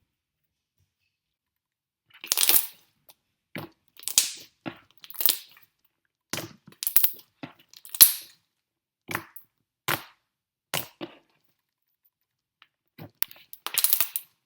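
Thick slime being worked by hand, letting off a series of sharp bubble pops and crackles at irregular intervals, starting about two seconds in.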